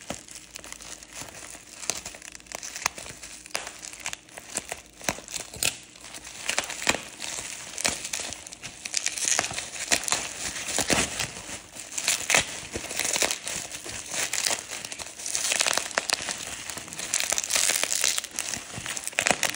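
Plastic bubble wrap crinkling and crackling as it is cut with scissors and pulled open by hand, a dense run of irregular sharp crackles.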